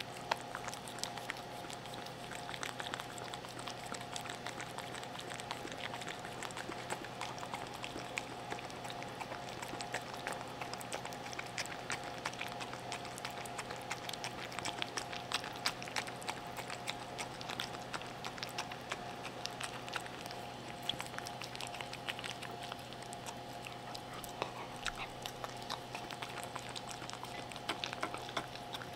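Cream poodle eating moist food from a bowl up close to the microphone: a continuous run of small, irregular wet licking and chewing clicks, over a faint steady hum.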